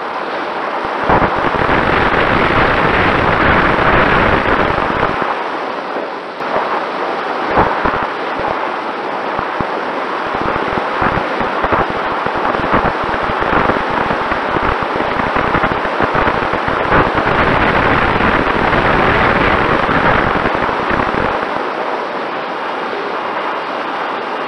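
Airflow rushing and buffeting over the onboard camera's microphone of a Mini Talon RC plane in flight, a dense crackling rush that swells and eases as it banks, with a faint steady tone of the electric motor underneath.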